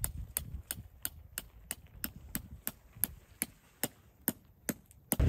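Tent peg being hammered into the ground: a steady run of sharp blows, about three a second, spacing out a little near the end.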